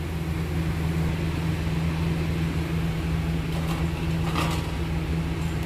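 Steady low mechanical hum under an even hiss of hot oil sizzling as fried pakoras are scooped out of a steel kadhai with a perforated spatula. Two light metal clinks come a little before and after four seconds in, as the spatula meets the steel plate.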